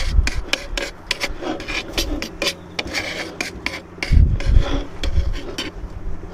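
Metal tongs scraping and clicking against a wooden plate while spaghetti is twirled and arranged, a quick run of short rasps and taps, with a few low bumps about four seconds in.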